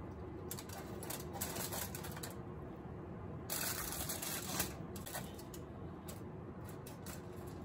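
Aluminium foil crinkling and crackling as hands shape and rummage in foil pouches, a string of small irregular crackles.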